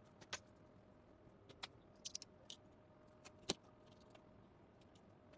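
Near silence with scattered faint clicks and taps of small parts and tools being handled on a repair bench, the loudest about three and a half seconds in, over a faint steady hum.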